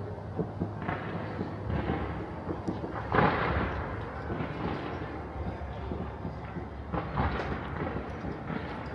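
Fireworks going off at a distance: a steady scatter of pops and cracks, with louder bangs about three seconds in and again about seven seconds in.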